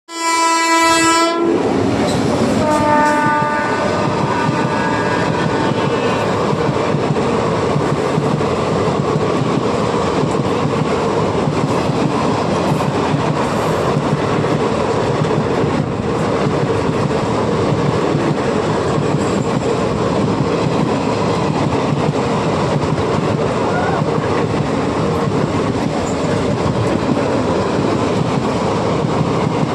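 Indian Railways train horn sounding one short blast, then a second, fainter blast about two seconds later. After that comes the steady, loud running noise of the train passing at speed through a station without stopping.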